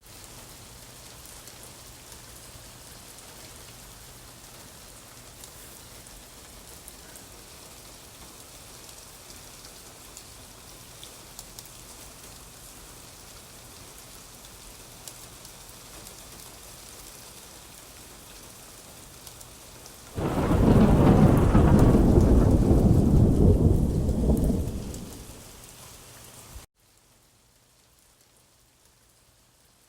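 Steady rain, with a loud deep rumble of thunder about two-thirds of the way through that dies away over a few seconds. Near the end the sound drops suddenly to much fainter rain.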